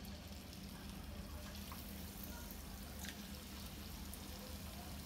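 Flour-coated paneer cubes deep-frying in medium-hot oil: a faint, steady sizzle with a few light pops.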